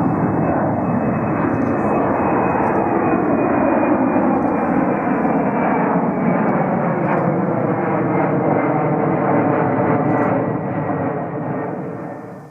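Jet airliner passing low overhead, its engines loud and steady, with a high whine that slowly falls in pitch. The sound cuts off suddenly at the end.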